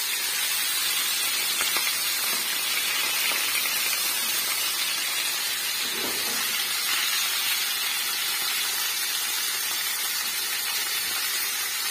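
Bone-in chicken thighs sizzling steadily in hot oil in a frying pan as they are seared. The chicken was washed and is still wet, which keeps the oil hissing and spitting.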